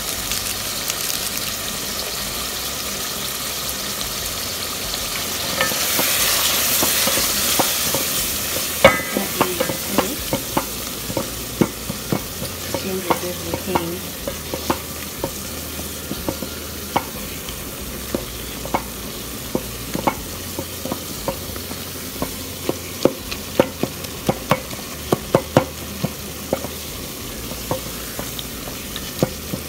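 Tomatoes, onions and curry powder sizzling in oil in a metal pot, stirred with a wooden spatula. The sizzle swells for a few seconds about six seconds in. From about nine seconds in, the spatula knocks and scrapes against the pot in irregular clicks, at times several a second.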